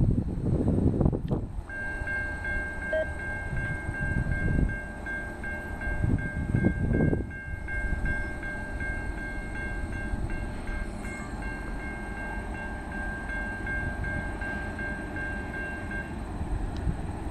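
Loaded crude-oil freight train rolling past with a continuous low rumble from its wheels and cars, swelling louder twice. A steady high-pitched ringing tone runs from about two seconds in and stops near the end.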